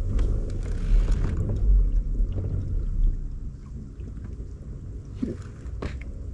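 Low rumbling wind and water noise on the microphone aboard a kayak, dropping off about halfway through, with scattered small knocks and clicks of handling.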